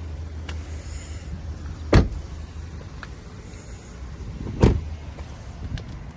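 Car doors of a 2020 Cadillac XT4 being shut, two solid slams: the first about two seconds in, the second a little under three seconds later. A steady low hum runs underneath and drops away after the second slam.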